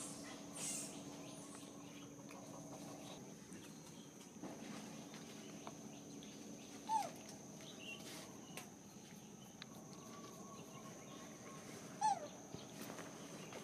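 Short squeak calls of a macaque, each sliding down in pitch. There are three of them, several seconds apart, over a steady faint outdoor hum.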